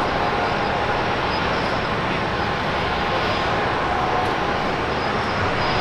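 Jet engines of a Boeing 787-10 airliner running on the ground: a steady rushing noise with faint whining tones.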